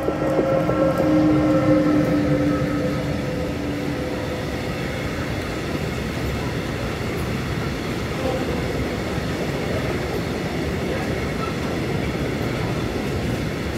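An electric freight locomotive passes close by with a humming whine that dips slightly in pitch and fades over the first few seconds, then a long train of tank wagons rolls past with a steady rumble of wheels on rail.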